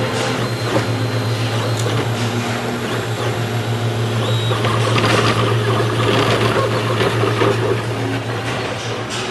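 CTC FDM 3D printer running: its stepper motors give short whining tones that change pitch as the print head moves back and forth, over the steady low hum of its cooling fans.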